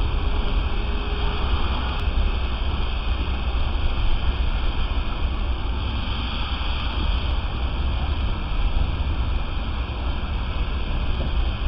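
Steady rushing of a firefighting hose jet over a deep, even rumble, with no break or change.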